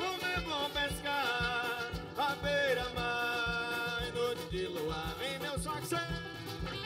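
Live carimbó band playing an instrumental passage: drums keep a steady beat under a wavering, sliding lead melody.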